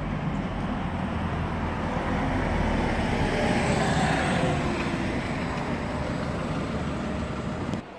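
Diesel-electric hybrid double-decker bus driving past close by: a broad engine-and-tyre rumble that swells to its loudest about halfway through, with a faint high whine at its closest, then fades as a car follows past. The sound drops suddenly just before the end.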